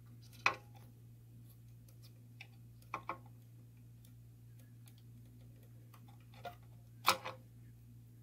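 A handful of light, sharp clicks and taps from the plastic wire connector, cables and fan housing being handled inside an inverter case as the cooling fan's plug is pushed back in, the loudest about seven seconds in. A steady low hum runs underneath.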